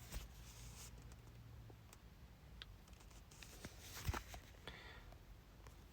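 Near silence: quiet room tone with a few faint clicks and taps, the loudest about four seconds in.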